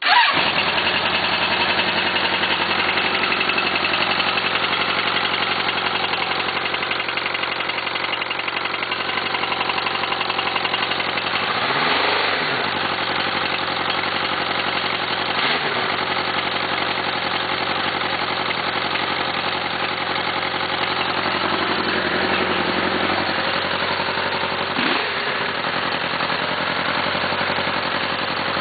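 First-generation oil-cooled Suzuki GSX-R750 inline-four engine catching at once and running, with a few brief revs about twelve, fifteen and twenty-five seconds in. It carries a rod knock from a connecting rod bent when the engine hydrolocked.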